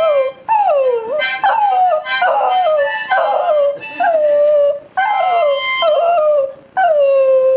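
Smooth fox terrier howling along to a harmonica: a run of about eight drawn-out howls, each sliding down in pitch, with short breaths between them, over the harmonica's steady notes.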